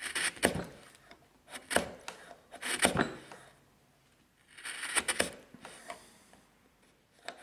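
A sharp bench chisel, pushed by hand, paring wood from the bottom of a dovetail socket. Four short slicing strokes, the last after a pause of about two seconds.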